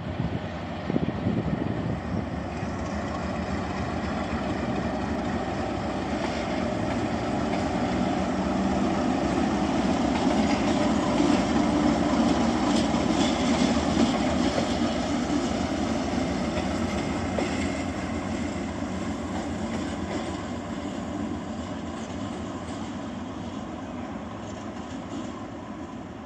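China Railway DF4B diesel-electric locomotive running light, its V16 diesel engine drumming steadily. It grows louder as it approaches, is loudest about halfway through as it passes, then fades as it moves away.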